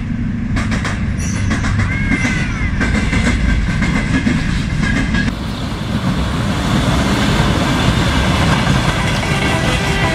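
A freight train running through a station: diesel locomotive rumble, then a long line of hopper wagons rolling past, with wheels clicking over the rail joints.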